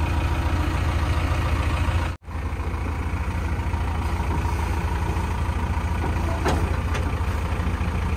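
JCB 3DX backhoe loader's diesel engine idling steadily with an even low throb, broken by one very short dropout about two seconds in.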